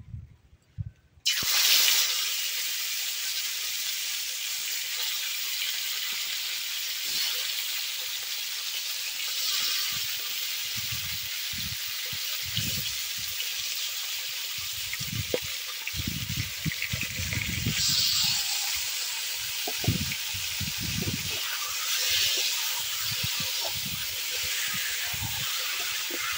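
Chicken pieces sizzling in hot mustard oil in a kadai: a loud sizzle starts suddenly about a second in and holds steady, with soft low thuds through the second half.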